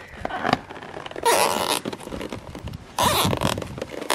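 Nylon zip ties being pulled tight through their ratchet heads: two quick zipping rips, about a second in and again about three seconds in, with small plastic clicks between.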